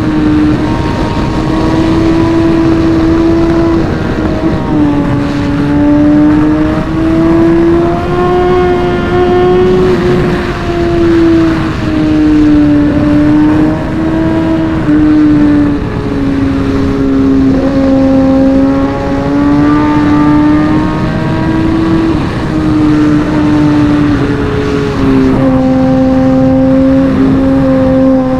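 Superbike's inline-four engine running hard, its pitch dropping and climbing back several times as it shifts through the gears, over a steady rush of wind.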